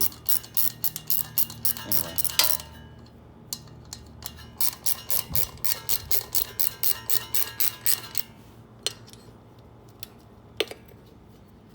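Ratchet wrench clicking in quick, even strokes, about four or five clicks a second, in two runs with a pause between, then a few single clicks near the end.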